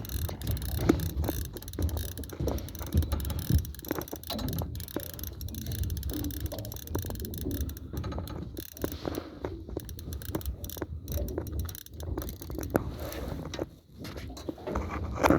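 Fishing reel being cranked, its gears and ratchet clicking irregularly over a low rumble.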